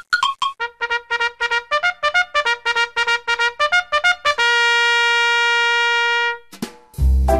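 Intro music: a run of quick short notes, about five a second, stepping up and down, then one long held note for about two seconds. A brief flourish follows, and near the end a new, louder tune with a heavy bass beat comes in.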